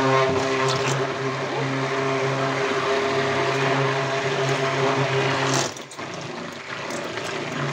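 Electric stick blender running at its lowest speed in a bowl of oils and lye solution, mixing the soap batter toward trace: a steady motor hum that grows quieter about six seconds in.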